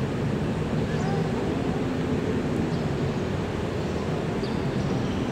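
Steady outdoor background rumble at a football training pitch, with a few faint, distant calls and short sounds from the players.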